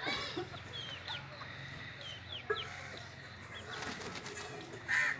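Chickens clucking, with many short, high peeps of chicks throughout and one louder call near the end.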